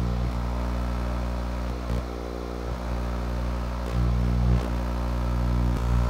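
Homemade magnetron microwave source's high-voltage transformer and cooling fan running while it transmits: a steady electrical hum with a buzzy edge, with a few faint knocks.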